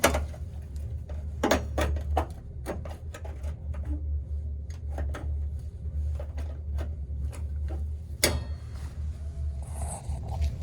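Metal knocks, clicks and scrapes as a panel is handled and fitted back onto a gas water heater, with the sharpest knocks at the start, about a second and a half in and about eight seconds in. A steady low hum runs underneath.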